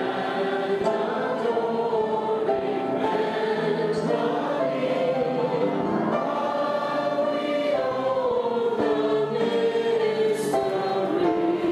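Choir singing, with held notes and a melody that moves slowly from note to note.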